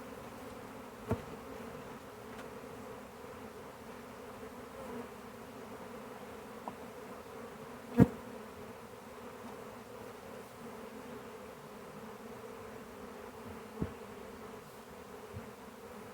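A honey bee swarm buzzing steadily. A few sharp knocks cut through the hum; the loudest comes about halfway through.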